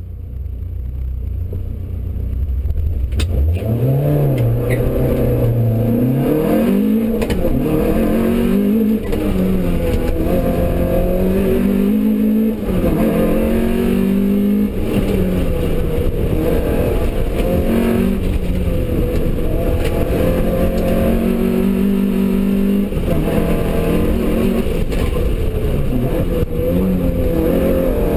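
Toyota Starlet's four-cylinder engine heard from inside the cabin during a competition run. It climbs in pitch about three seconds in, then keeps rising and dropping as the driver revs through the gears and lifts for corners.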